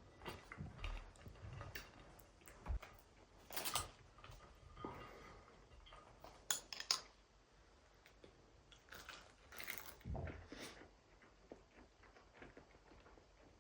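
Quiet, scattered clinks and knocks of cutlery against dishes.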